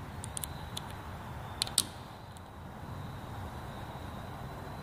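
Light metallic clicks and scrapes of a small screwdriver and a pick working at the C-clip in the top bore of a Ford 6.0L diesel fuel injector. There are a few small ticks in the first couple of seconds, the sharpest near two seconds in, over steady background hum.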